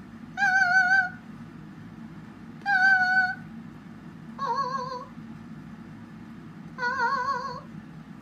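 Parrot mimicking a cat's meow: four short, wavering meows about two seconds apart, the last two pitched lower than the first two.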